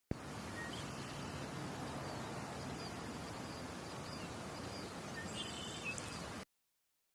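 Steady outdoor background noise with a few faint, short bird chirps, cutting off abruptly into silence about six and a half seconds in.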